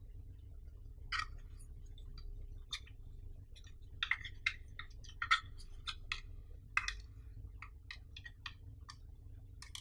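Plastic clicks and taps from a small black battery charger and its cable being turned over and handled, irregular and bunched most thickly in the middle.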